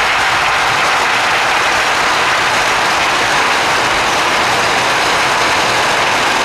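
Steady rushing of wind and tyre noise at motorway speed, heard from inside a moving car, with no engine note standing out.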